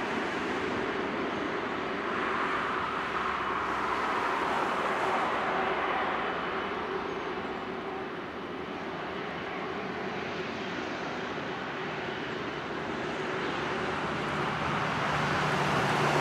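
Jet airliner engines running at low power on the ground: a steady hum under a rushing noise that swells, eases about halfway, then grows again near the end.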